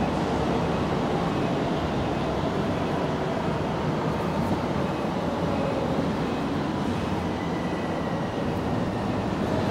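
A steady, even background noise, heaviest in the low end, with no distinct events.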